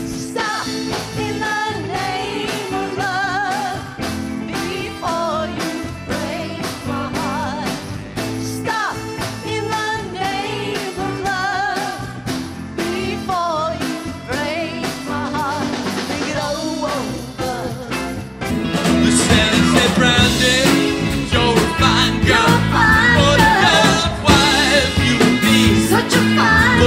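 Live band of keyboards, guitar, bass and drums playing a song with singers. The music gets louder about two-thirds of the way through.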